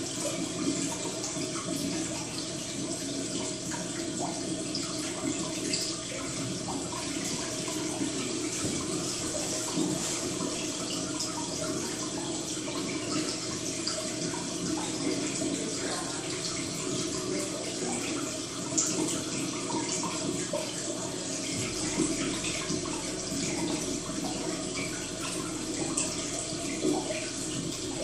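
Steady sound of running, trickling water, with faint scattered ticks.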